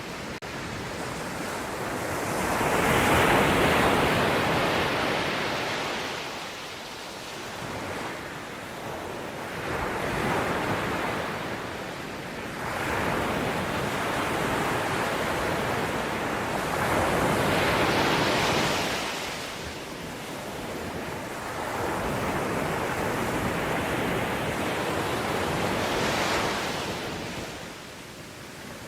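Ocean waves breaking and washing on the shore, in repeated swells of surf that build and fade about five times, the strongest crashes a few seconds in and just past the middle.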